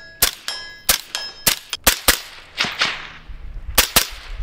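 Suppressed Mk12-style 5.56 rifle firing several shots in irregular succession, some followed by a short metallic ring.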